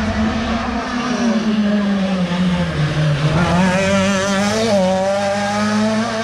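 Rally car engine passing at speed: its revs fall to a low point about three seconds in, then climb again as it accelerates away.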